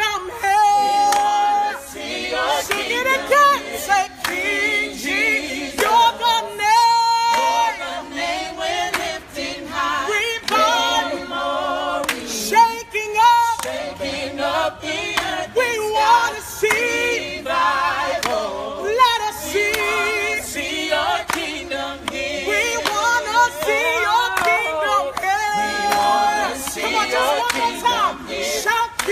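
A group of people singing a Christian worship song together, with no instruments heard.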